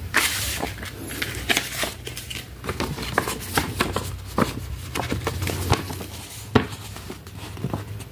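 Folded paper leaflet and plastic packaging crinkling as they are picked up and handled, in a run of irregular sharp rustles and crackles.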